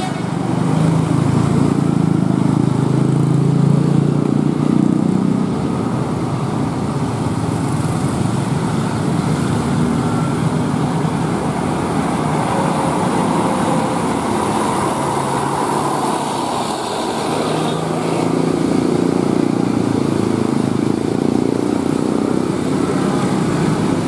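Passing road traffic: a tour bus's engine and several motorcycles and scooters going by close, running steadily, with the engine sound swelling again near the end as more vehicles come through.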